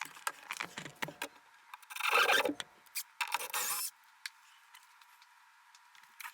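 Rubbing and scraping on wood, with a few knocks in the first second and two longer rasping scrapes about two and three and a half seconds in.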